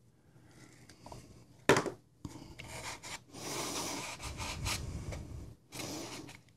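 A sharp snip of scissors cutting through a piece of foam a little under two seconds in, then a few seconds of rubbing and scraping as the foam block is pressed into the case's foam insert and knives are handled in their foam slots.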